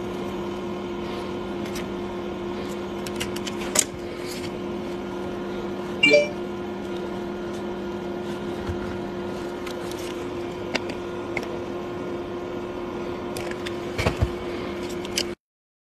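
A steady low hum with two held tones, with scattered small clicks and taps and a brief pitched chirp about six seconds in; the sound cuts off abruptly near the end.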